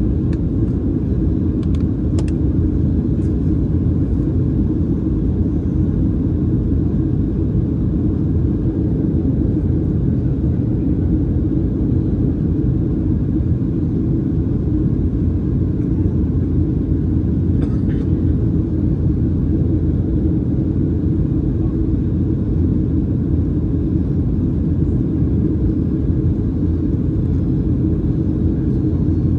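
Boeing 737-700 cabin noise in flight: a steady low rumble of the CFM56-7B engines and airflow, heard inside the cabin from a window seat by the wing.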